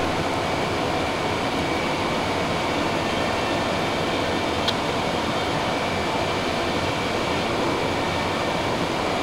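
Steady hum and rumble from an Amtrak Auto Train's Superliner bi-level coaches alongside the platform, with a faint steady high whine running through it and a single sharp click about halfway through.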